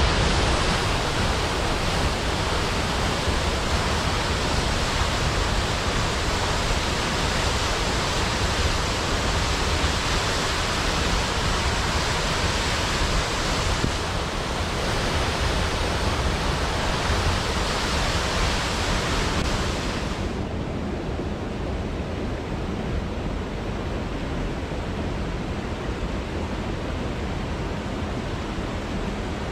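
Waterfall water pouring steadily, a constant rush of noise. About two-thirds of the way through it abruptly turns duller and slightly quieter, losing its hiss.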